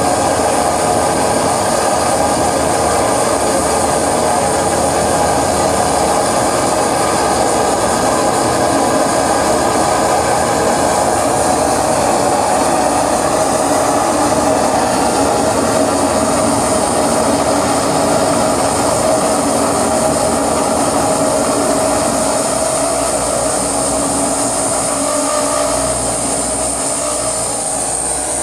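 Live electronic noise music from effects pedals and a mixer: a loud, dense, unbroken wall of noise with a few held tones running through it, easing off slightly near the end.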